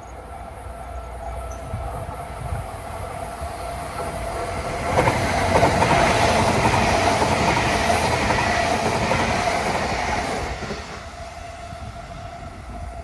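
Electric train passing over a level crossing, its noise building about four seconds in, loud for several seconds, then fading. The crossing's warning signal sounds steadily underneath.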